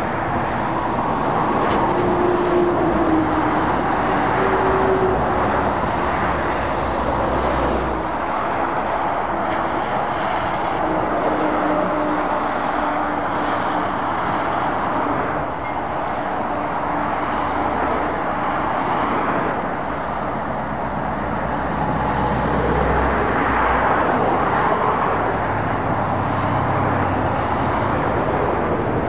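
Steady road traffic with lorries and cars passing one after another: tyre noise and diesel engine hum, swelling a little as each heavy vehicle goes by.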